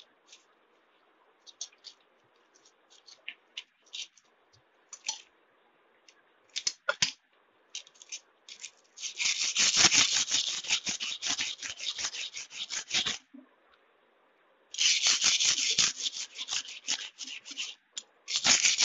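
A steel kitchen knife blade scraping on wet sandpaper as it is sharpened, its edge dull. A few light scrapes and taps come first. Then, about nine seconds in, a run of rapid back-and-forth scraping strokes lasts four seconds, another follows around fifteen seconds, and a third starts near the end.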